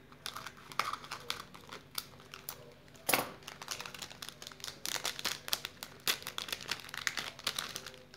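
Plastic lollipop wrapper crinkling in the hands as it is cut open with scissors and pulled off: irregular crackles, with one louder sharp crackle about three seconds in.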